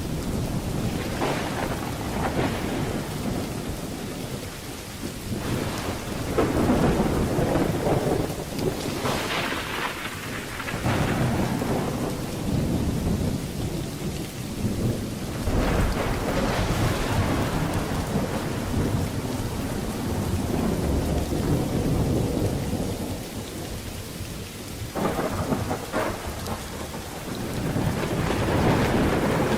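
Thunderstorm: steady rain with rolling thunder that swells and fades several times, including sharper cracks.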